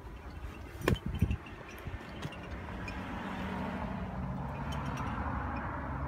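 A motor vehicle drives past, its tyre hiss and low engine hum swelling from about two seconds in. Two sharp knocks come about a second in.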